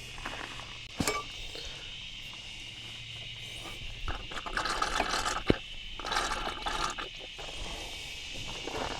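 Hand work on a tractor: sharp metal clinks about a second in and again about five and a half seconds in, with scraping and rattling between them, over a steady high-pitched hum.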